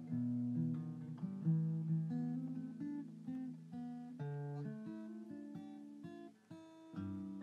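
Acoustic guitar music, chords strummed and picked, changing every second or so.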